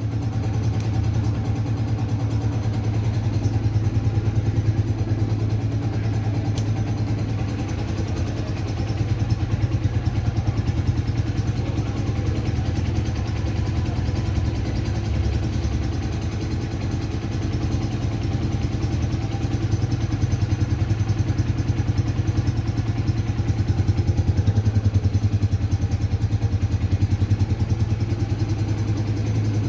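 A motor vehicle engine running steadily with a rapid, even pulse.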